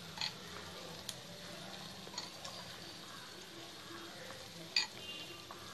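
Masala gravy boiling in a pan with a steady low bubbling hiss as raw chicken pieces are put in by hand. A few short sharp clicks, the loudest near the end.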